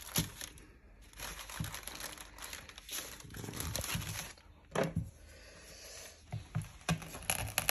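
Thin paper wrapper of a pressed sheng pu-erh tea cake crinkling and rustling as it is handled, with a few sharp clicks near the end.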